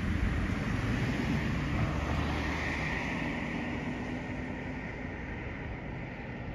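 Road traffic: a vehicle passes close by with tyre and engine noise, loudest about three seconds in and fading afterwards, over a steady background rumble of traffic.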